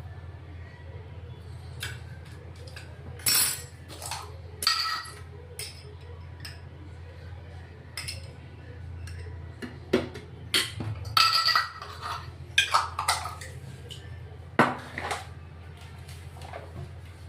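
Kitchen utensils clinking and knocking against dishes in scattered, irregular strikes, busier in the second half, over a steady low hum.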